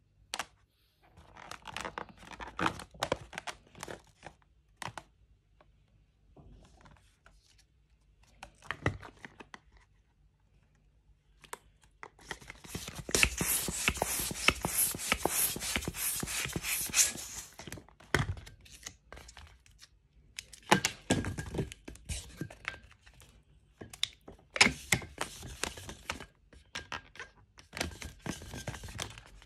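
Latex modelling balloons rubbing, creaking and thunking in short bursts as they are handled and twisted. Midway, a hand pump pushes air into a long balloon, a loud rushing run of quick strokes lasting about five seconds.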